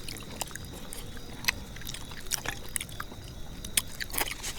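A man eating noisily: chewing and mouth sounds, with scattered short sharp clicks over a low steady background noise.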